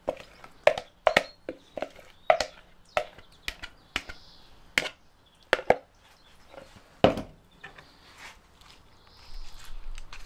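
A spatula knocking and scraping against a mixing bowl in a string of sharp, irregular knocks as sauce is scraped out, with one louder knock about seven seconds in. Near the end comes a low rustle as the sauce is spread over tortilla chips.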